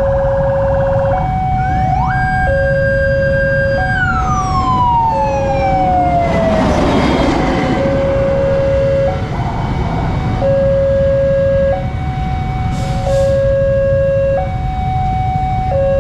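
Railway level-crossing warning alarm sounding a steady two-tone alternation, a low note and a higher note each lasting over a second, over traffic rumble. About two seconds in, a separate tone sweeps up, holds, then slides down over several seconds, with a rush of noise in the middle as something passes.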